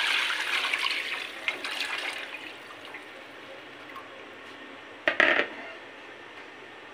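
Thin yogurt and gram-flour batter pouring from a bowl into a pot of fried masala, splashing as it lands. The pour trails off after about two seconds, and there is a short clatter about five seconds in.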